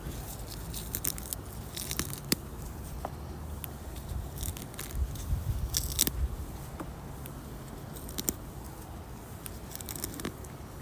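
Weeds being pulled out of the ground: irregular crackling and snapping as roots tear free of the soil.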